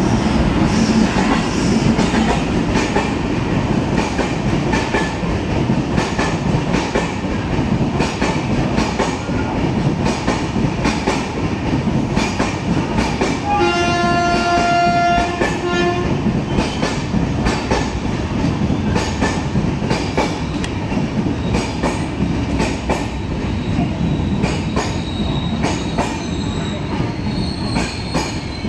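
An Indian Railways train with an electric locomotive rolling past along the platform: a steady rumble of wheels and coaches with the clatter of rail joints. Midway a locomotive horn sounds once for about two and a half seconds.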